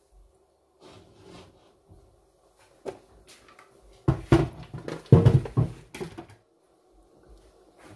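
Kitchen handling noises: scattered knocks, then a loud cluster of knocks and rattles from about four to six seconds in, like cupboard doors and utensils being moved, over a faint steady hum.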